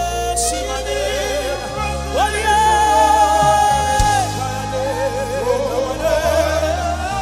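Live gospel worship music: a singer's long, wavering vocal lines, without clear words, over sustained low chords that change about every two seconds.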